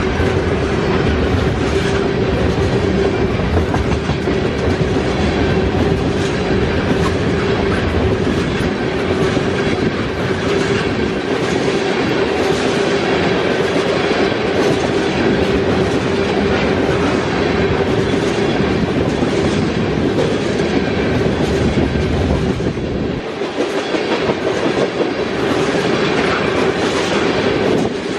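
Train cars rolling past, their wheels clicking over the rail joints, with a steady hum. The low rumble thins out a few seconds before the end.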